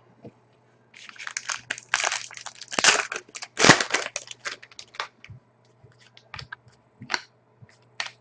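Trading cards and packaging handled by hand: a dense crinkling rustle from about one to four and a half seconds in, then scattered light clicks and taps.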